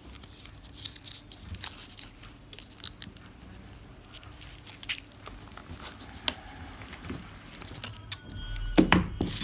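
Thin polythene sheet crinkling and clear sticky tape being handled and pressed down, in scattered small crackles and clicks, with a louder tearing stretch near the end.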